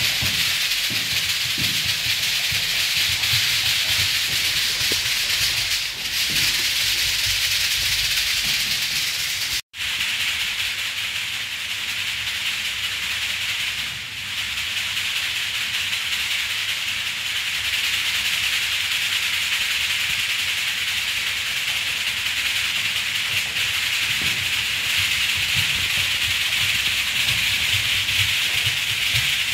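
A hand rattle shaken steadily and continuously, with low thuds near the start and again near the end. The sound cuts out completely for a split second about ten seconds in.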